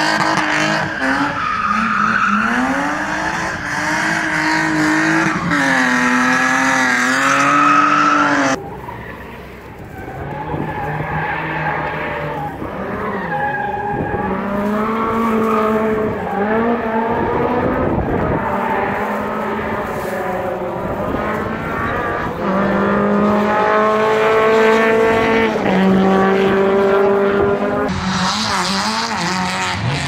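Rally cars drifting. A BMW E30 M3's engine revs up and down over and over under throttle, with tyre squeal. After a sudden cut about nine seconds in, another rally car's engine is quieter for a moment, then revs repeatedly as it slides.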